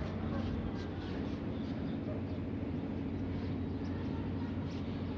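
A steady low rumble with a constant hum underneath and a few faint scrapes.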